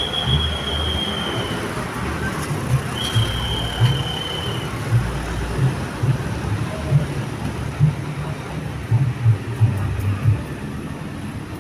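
Road traffic rumble with irregular low thumps, under two long, high, steady whistle tones, one at the start and one about three seconds in, each lasting about a second and a half and sagging slightly in pitch.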